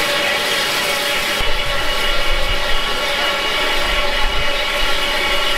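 Southern Railway Q class 0-6-0 steam locomotive no. 30541 standing at rest, blowing off steam: a loud, steady hiss with several faint tones running through it.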